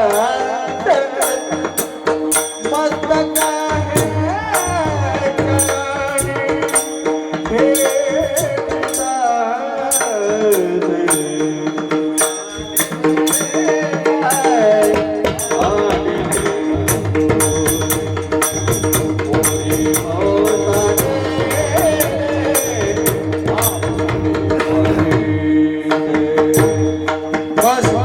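Kirtan music: a voice sings an ornamented melody over a steady held drone, with a hand drum and small hand cymbals keeping a regular beat. The low drum strokes drop out for a few seconds about a third of the way in, then return.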